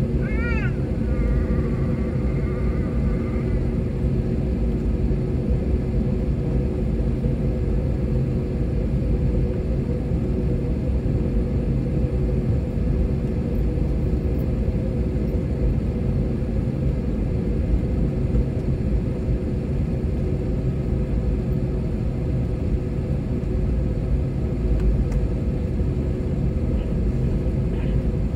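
Steady rumble with a low, even hum inside the cabin of an Airbus A321neo taxiing on its Pratt & Whitney PW1100G geared turbofans. A brief high tone sounds about a second in.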